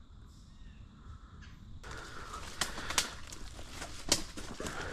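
Footsteps crunching and rustling through dry leaf litter and low brush, with a few sharp snaps of twigs, starting about two seconds in after a quiet stretch.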